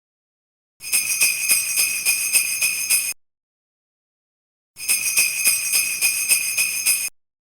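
Sleigh bells shaken in a quick, steady rhythm, in two bursts of about two seconds each with dead silence before, between and after.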